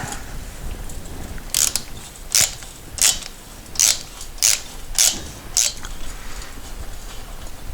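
Hand ratchet driving a 10 mm Allen socket, clicking in seven short runs about two thirds of a second apart from about a second and a half in, as a cylinder head Allen bolt is worked loose.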